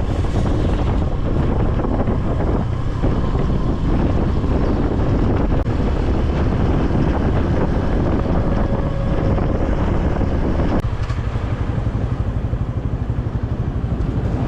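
Motorcycle riding along a road, its engine running under heavy wind rush on the microphone. About eleven seconds in the wind rush drops away, leaving a more pulsing engine note.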